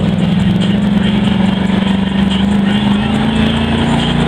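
Jeep CJ's engine held at high revs, pulling through deep mud. The note stays steady and rises slightly about three seconds in.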